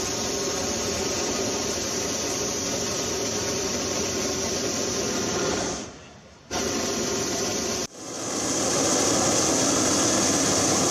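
Hot-air balloon propane burners firing: a long blast that dies away about six seconds in and a short second blast, then after a sudden break a louder, steady burner roar heating the envelope during inflation.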